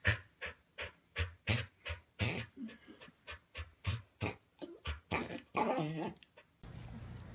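Dog panting rapidly, short breaths about three a second. Near the end it gives way to a steady low hum.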